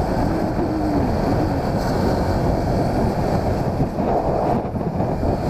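Wind rushing over the camera microphone on a moving motor scooter, with the scooter's engine running underneath.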